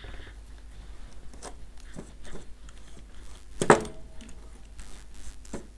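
Small tools and parts handled on a workbench: scattered light clicks and clinks, with one sharper click that rings briefly about three and a half seconds in, over a low steady hum.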